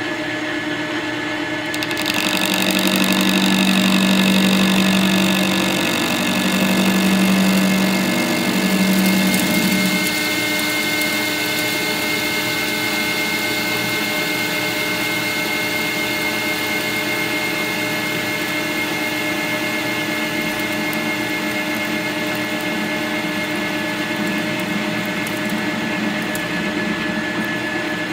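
Victor metal lathe running with a carbide insert tool taking a facing cut on a block held in a four-jaw chuck: a steady machine whine and hum. A louder low hum swells in three stretches during the first ten seconds, then the sound settles to an even tone.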